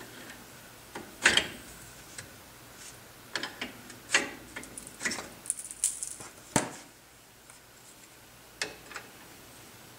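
Brake pads being worked out of a C3 Corvette front brake caliper by hand: scattered metallic clicks, scrapes and clinks, with a sharper knock about six and a half seconds in.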